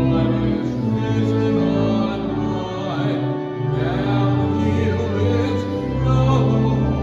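Church organ playing held chords over deep bass notes, with voices singing along.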